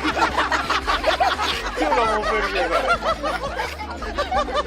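People laughing: rapid runs of short, high-pitched bursts of laughter, over a steady low hum.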